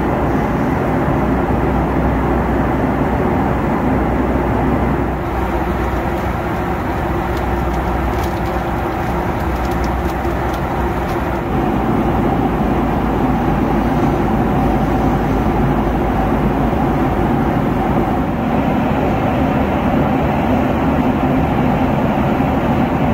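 Steady jet-engine and airflow noise inside the cabin of a Boeing 757 in flight. The tone changes abruptly a few times, at about 5, 11 and 18 seconds in.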